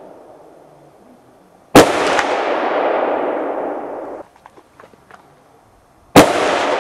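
Two hunting-rifle shots about four and a half seconds apart, each followed by a long echoing tail that dies away over a couple of seconds. A few light clicks come between the shots.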